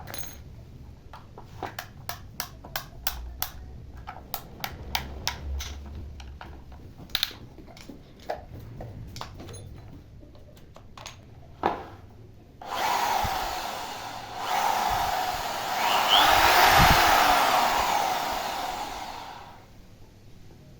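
A series of light clicks and taps while parts are handled. Then, about thirteen seconds in, an electric hand drill runs loudly for about six seconds, dipping briefly once before winding down.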